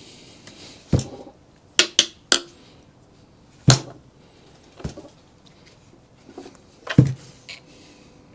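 Scattered sharp knocks and clicks, about seven in all, the loudest near the middle and near the end. They come from a tool and hands working at the casing of a JBL Professional unit that is being taken apart for scrap.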